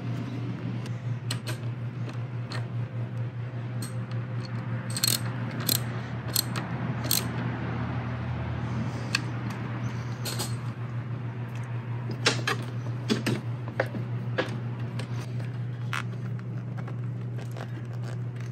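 Scattered small metallic clicks and clinks as cable ring terminals and nuts are handled and fitted onto a winch's terminal posts, over a steady low hum.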